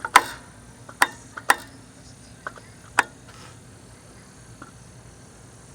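About five sharp knocks at irregular spacing over the first three seconds, the first one the loudest, over a low steady background.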